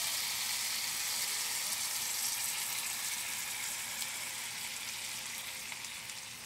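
Oxtails sizzling in a hot cast-iron skillet as sauce is poured over them: a steady sizzle that slowly gets quieter.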